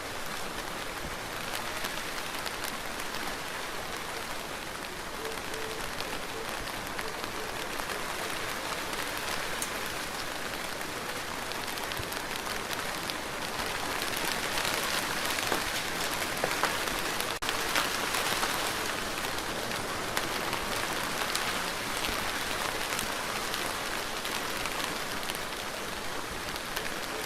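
Steady rain falling, with many close drops pattering on a surface. It grows somewhat heavier about halfway through, then eases back a little.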